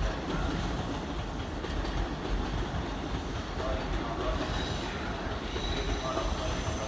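Electric commuter train running along the station track, a steady rumble of steel wheels on rail with clacking over the rail joints. A faint high whine comes in about four seconds in.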